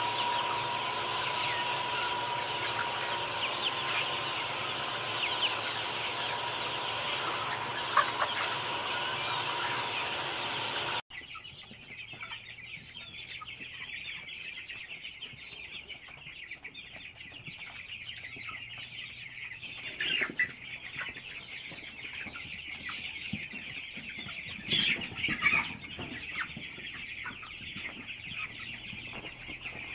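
Hens clucking over a steady high-pitched background; the sound changes abruptly about eleven seconds in, and there are two louder outbursts later on.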